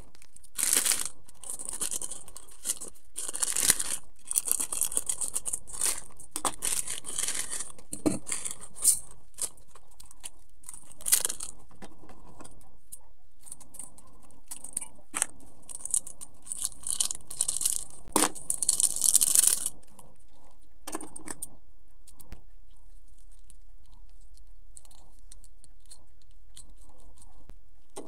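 Plastic instant-noodle packets and seasoning sachets crinkling and being torn open, in irregular crackles and rips. It quietens to faint handling sounds for the last several seconds.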